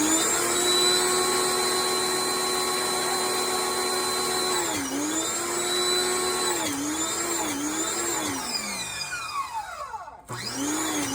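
Power washer motor running with a steady whine while spraying through its soap attachment. The pitch dips briefly a few times past the midpoint, the motor winds down and stops about eight seconds in, and it starts up again near the end.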